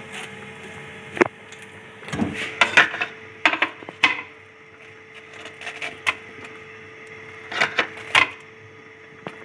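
Kitchen utensils and dishware knocking and scraping in a few short clusters of clicks, over a steady hum.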